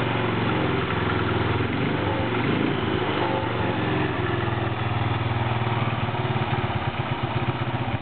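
BMW R26's 250 cc single-cylinder engine idling, a steady thumping beat that evens out after the first few seconds.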